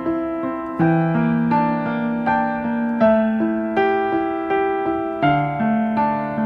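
Background music: a calm piano piece, notes struck at an even, gentle pace and left to ring.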